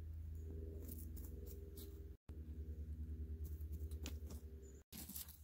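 Quiet background music: a low, sustained drone that pulses evenly in its second half, with two abrupt breaks.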